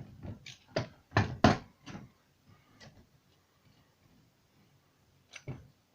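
A handful of sharp metallic knocks and clunks, bunched in the first two seconds with one more near the end: a bearing puller and socket being wound back and taken off a moped crankshaft end and handled on the bench.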